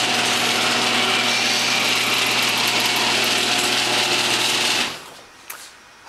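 Genie garage door opener running, its motor and drive lifting the sectional door up along the ceiling rail with a steady mechanical hum, cutting off about five seconds in as the door reaches the open position.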